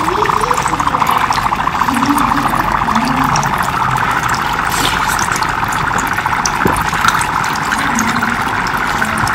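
Mineral water poured from a plastic bottle onto dry ice in a bowl, then a steady, dense bubbling and hissing as the dry ice boils off under the water.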